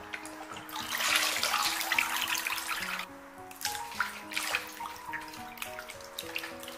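Water sloshing and splashing in a stainless steel basin as hands rinse a whole raw chicken, dripping as it is lifted and turned. The splashing is busiest for the first three seconds, stops for a moment, then comes back as scattered splashes and drips, over soft background music.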